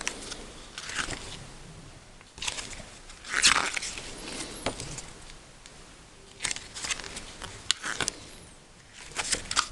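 Paper rustling and crisp clicks as the thick pages of an artbook booklet are pried apart and turned by hand, in irregular bursts, the loudest a little past three seconds in.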